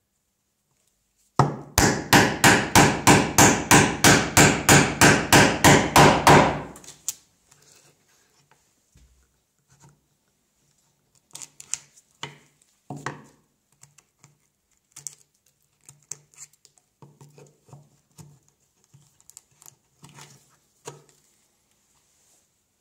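A mallet driving a chisel into white oak to chop a mortise: a fast, even run of about seventeen blows, some three a second, lasting about five seconds. After that come faint, scattered knocks and scrapes as a chisel levers waste chips out of the mortise.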